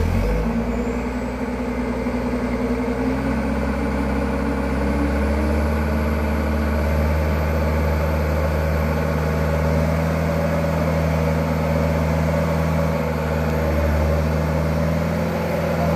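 Diesel engine of a stuck Mitsubishi Canter light truck running hard as it tries to climb out of the mud, a steady drone whose pitch shifts about five seconds in.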